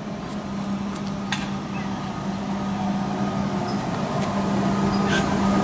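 Comeng electric suburban train arriving at a station platform: a steady low hum over running noise, growing louder as it comes in, with a few faint clicks.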